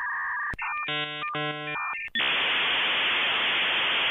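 Electronic sound effect: steady paired beeping tones, a sharp click, then two bursts of stacked chord-like tones, followed about two seconds in by a loud burst of static hiss that cuts off suddenly near the end.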